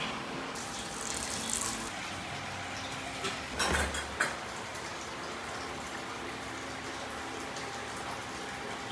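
Steady rush of running or pouring water, with a short burst of clattering about three and a half seconds in.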